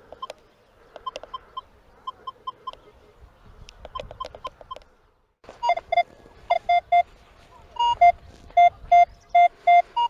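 Metal detector sounding short electronic beeps: a soft run of high beeps, then, after a brief dropout about five seconds in, louder repeated beeps alternating between a lower and a higher tone as the coil passes over a shallow target.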